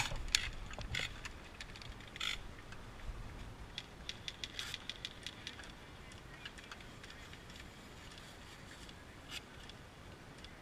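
Faint scattered clicks of distant airsoft guns firing, with a quick run of shots about four to five seconds in.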